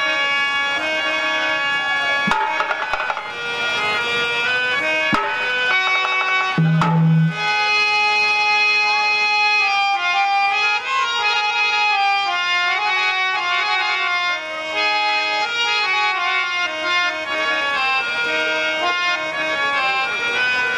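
Instrumental folk kirtan music: a harmonium plays a sustained reedy melody over hand-drum strokes, with one loud deep drum beat about seven seconds in.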